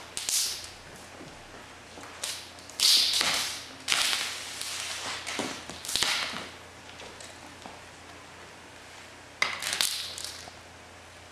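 Handling noise as a stack of juggling cigar boxes is gripped and lifted: several short scuffs and rustles, each starting suddenly and fading within a second, the loudest about three seconds in and again near the end.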